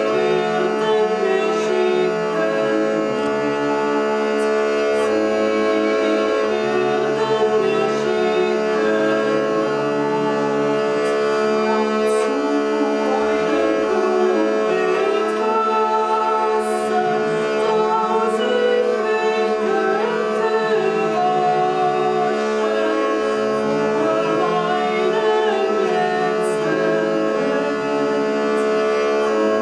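Hurdy-gurdy playing a melody over steady, unbroken drones, with a woman's voice singing along.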